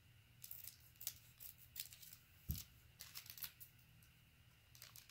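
Scissors snipping through the foil wrapper of a trading-card pack, with short crinkles of the wrapper, and one soft thump about two and a half seconds in.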